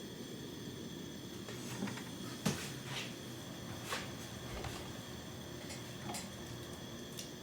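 Steady hiss of a torch heating an aluminum flange that is not yet hot enough to melt the brazing rod, with a few light clicks and knocks of handling, the sharpest about two and a half seconds in.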